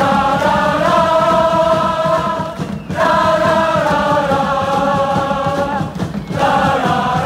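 Large crowd of football supporters singing a chant in unison, in phrases of about three seconds with short breaks between them.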